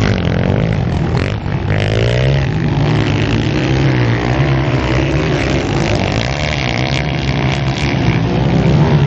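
Motocross motorcycle engines revving up and down as bikes ride by on the dirt track, with the pitch rising and falling over a steady noisy rumble.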